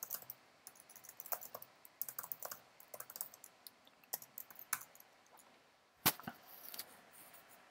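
Computer keyboard typing: a run of short, irregular key clicks, with one louder click about six seconds in.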